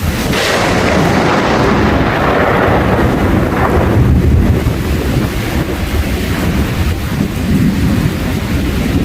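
A thunderclap breaks just after the start, its crack fading over a few seconds into a low rolling rumble, with rain falling steadily throughout.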